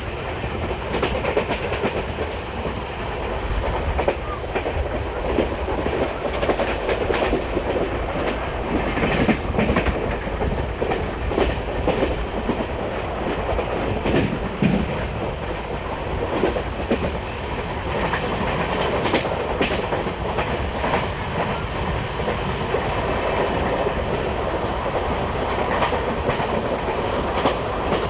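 Passenger train running along the track: a steady rolling rumble with wheels clattering over rail joints in irregular clicks throughout.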